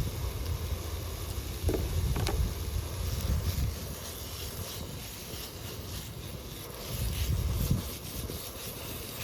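Wind buffeting the microphone outdoors: a low rumble that swells in two gusts, with a couple of faint clicks.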